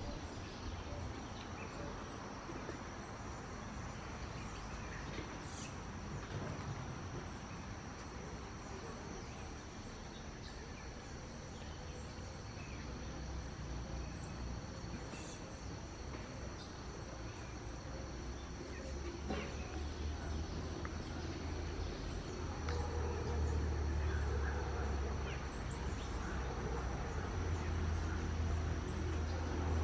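Forest ambience dominated by a steady high-pitched insect drone. A low rumble grows louder in the last third.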